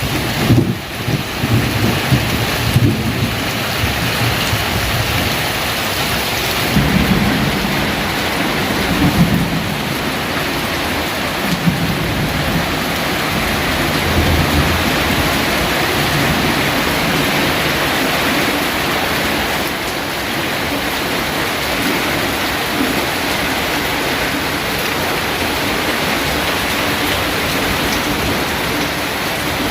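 Heavy rain pouring steadily, with low rumbles of thunder in the first half.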